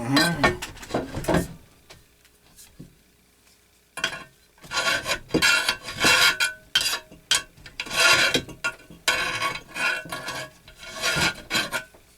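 Second-cut hand file rasping along the edge of a metal part in regular push strokes, about one every 0.7 seconds, starting about four seconds in. Before that comes a short clatter of handling, then a brief pause.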